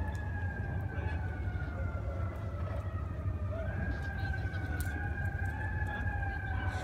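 A distant siren wailing: one long tone that slowly falls in pitch and rises briefly about halfway through. It sounds over a steady low rumble.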